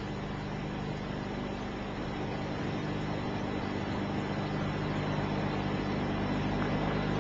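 Steady hiss and low mains hum of an old recording, growing slightly louder.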